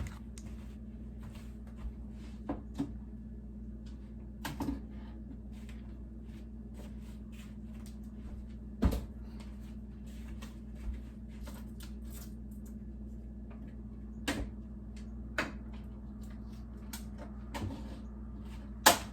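Jars and food containers being taken out of a refrigerator and set down: scattered short knocks, clicks and clunks, the loudest about nine seconds in and near the end, over a steady low hum.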